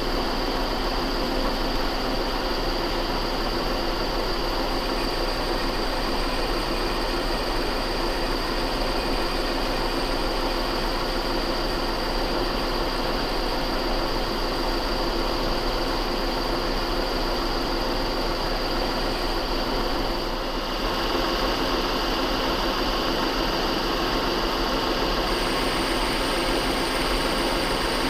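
Metal lathe running steadily, turning a heavy steel shaft while the center drilled in its end is recut true with the compound set at 30 degrees. It is a steady machine hum made of several held tones. About twenty seconds in it dips briefly, and the higher tones shift a little after that.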